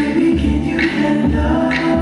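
A recorded R&B/pop song playing loud: a sung vocal line with held notes over a steady beat with deep bass notes a little under once a second.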